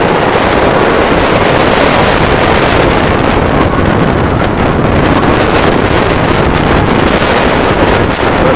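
Wind buffeting the microphone over the steady rush of water along a Hunter 27 sailboat's hull as it sails heeled over through choppy water. The noise is loud and constant.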